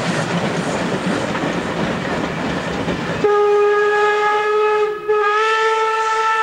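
A passing steam-hauled train, a loud even rushing clatter of wheels and running gear, which stops abruptly about three seconds in. A steam locomotive whistle follows with two long blasts, the second slightly higher in pitch.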